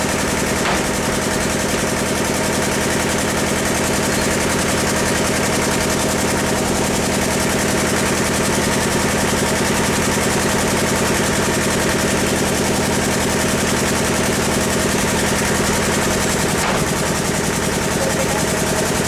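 Steady, unchanging drone of an engine or motor running at a constant speed.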